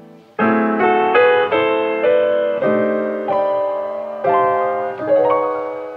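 Solo piano music: notes and chords struck roughly twice a second, each left to ring and fade.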